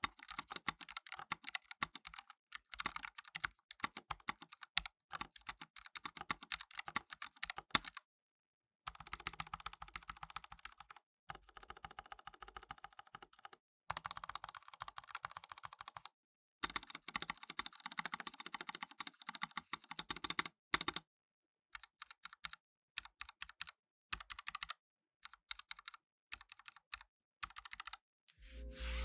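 Typing on a NuPhy Air75 low-profile mechanical keyboard with pre-lubed low-profile Gateron Red switches and PBT keycaps. Quick runs of keystrokes come with brief pauses between them, then slow to scattered single presses over the last several seconds.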